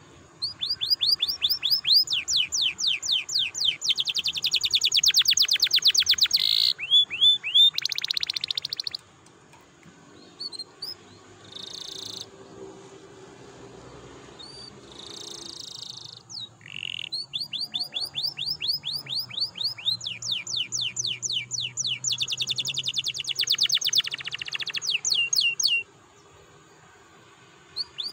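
Domestic canary singing long, rapid rolling trills of repeated high sweeping notes. Two long trill phrases are separated by a few seconds of scattered short notes.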